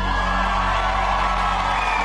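Studio audience cheering, applauding and whooping while the live band holds its final sustained chord.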